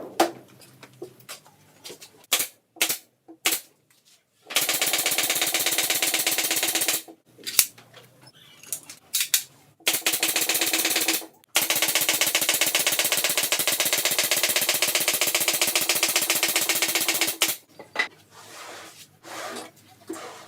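Power screwdriver driving screws into the wooden panels of a subwoofer cabinet, in three long, fast-rattling runs. Short clicks and knocks come between the runs.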